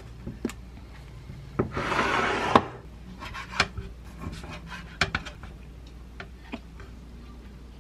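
A short scraping, rustling noise about two seconds in, then a kitchen knife slicing soft dried persimmons on a wooden cutting board, with a few light knocks as the blade meets the wood.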